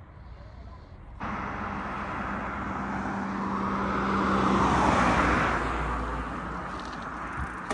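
A car passing on a road: tyre and engine noise swells to a peak about five seconds in, then fades away.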